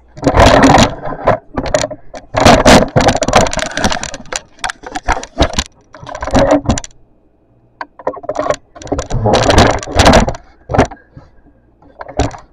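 Irregular bursts of knocking, rattling and scraping close to the microphone: pantry items and the camera being handled while a kitchen cupboard is stocked, with short pauses between the bursts.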